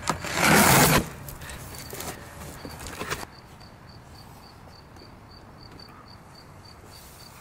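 A utility knife slicing the packing tape on a cardboard shipping box, then cardboard rustling as the flaps are opened. After that, only a faint high chirp repeating about four times a second.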